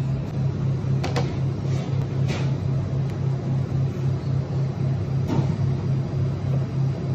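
A steady low machine hum that pulses about four times a second, with a few light knocks as a chef's knife slices through a terrine and meets a plastic cutting board.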